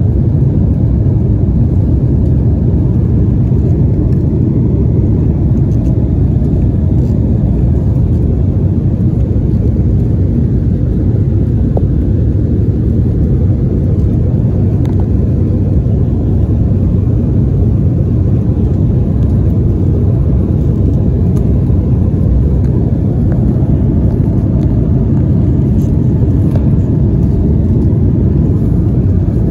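Steady low rumble of cabin noise inside an Embraer 190 airliner climbing after takeoff. It is the sound of its twin GE CF34-10E turbofan engines and the airflow past the fuselage, heard from a window seat.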